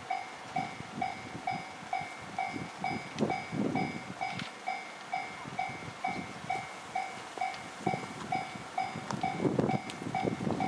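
Japanese railway level-crossing warning bell ringing steadily, about two and a half evenly spaced dings a second, signalling that a train is approaching. Irregular low rumbling sounds underneath, strongest near the end.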